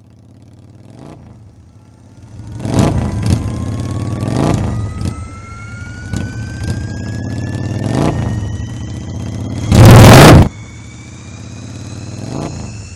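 Sci-fi hover bike engine sound effect fading in: a steady low hum under a whine that slowly rises in pitch, with several whooshes and a loud hissing burst lasting under a second about ten seconds in.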